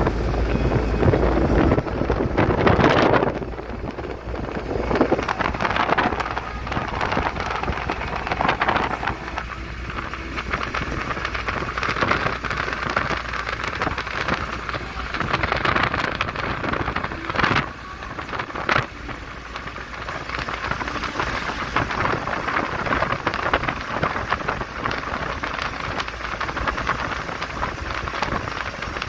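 Steady rushing road and wind noise of a moving vehicle, heard from inside the cab, with a rough, crackly texture and a louder swell about three seconds in.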